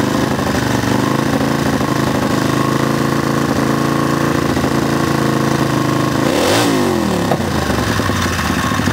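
Drag-racing lawnmower's engine running steadily as it warms up. Its revs climb back up just after the start and dip briefly and recover about six and a half seconds in.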